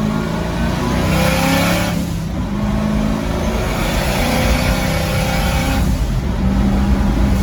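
Twin-turbo destroked 6-litre LS V8 in a 1957 Chevy pickup running under acceleration, its pitch rising twice with a brief dip about two seconds in.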